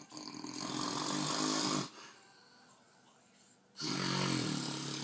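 A man snoring: two long, loud snores, the first lasting nearly two seconds and the second starting about four seconds in.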